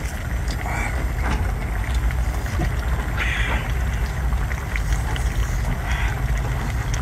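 A man eating spicy octopus tentacles, with a couple of short breathy hisses through his open mouth, over a steady low rumble.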